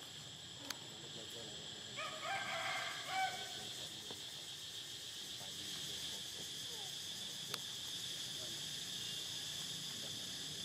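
Steady high-pitched insect chirring, with a short pitched call about two seconds in and a couple of faint clicks.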